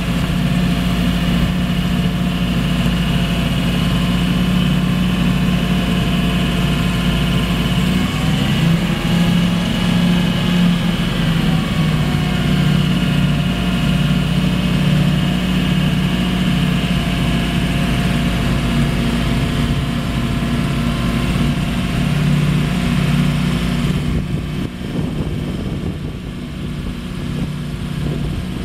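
1991 GMC TopKick's 6.0-litre gas V8 engine running steadily while its PTO-driven hydraulics raise the dump flatbed. It wavers in pitch briefly, then turns a little quieter near the end.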